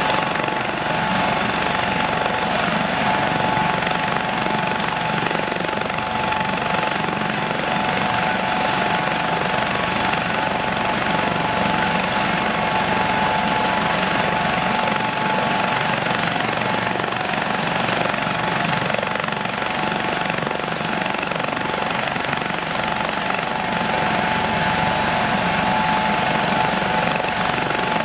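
AS 365 Dauphin twin-turbine helicopter ground-running on the pad with its rotors turning: steady rotor and engine noise with a high turbine whine.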